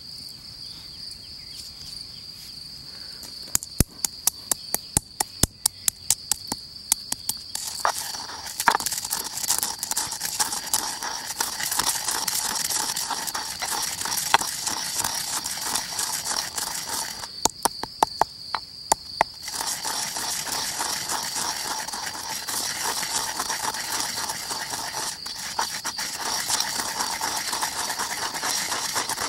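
Granite pestle crushing whole coriander seeds, peppercorns and coarse salt in a granite mortar: first a run of sharp separate taps, then a steady gritty grinding as the pestle is worked round the bowl, with a few taps again midway. Crickets chirp steadily behind it.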